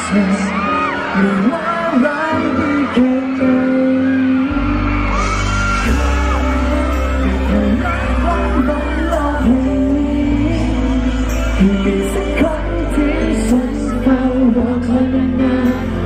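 Live pop song: a male singer sings into a handheld microphone over a full band backing, heard from within the crowd. A heavy bass line comes in about four and a half seconds in.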